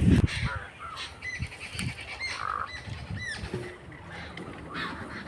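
Birds calling: several short high chirps and a harsher squawk about halfway through, after a low thump at the very start.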